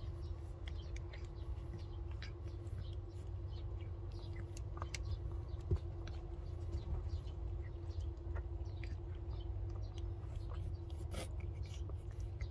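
Newborn kittens suckling at their mother cat: faint scattered clicks and tiny squeaks over a low steady rumble and a faint hum, with one soft thump about halfway through.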